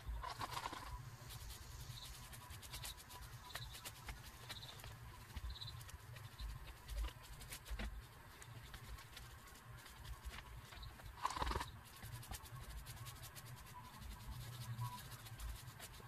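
Faint brushing and scattered light taps of a paintbrush working a watered-down wood glue coat onto old bones, with two louder knocks, one right at the start and one about eleven seconds in, over a low steady hum.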